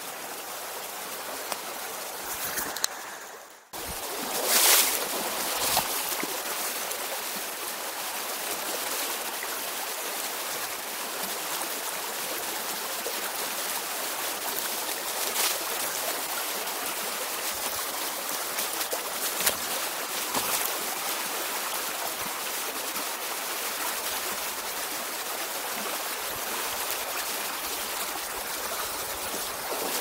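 Shallow mountain stream running over rocks, a steady rush of water. The sound drops away briefly about three and a half seconds in, then returns, with a few short bumps.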